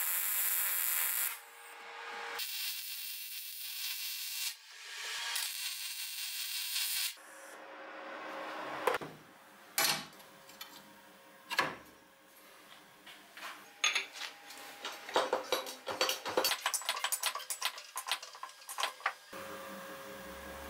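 Welding arc crackling and hissing in three bursts over the first seven seconds. Then scattered sharp metal clicks and knocks of parts being handled and fitted, with a quick run of clicks in the second half.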